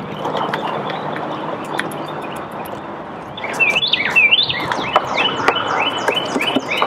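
Wind noise on the microphone. From about halfway in, a songbird sings loud, high chirps: first a quick jumble, then a steady run of short repeated notes about twice a second.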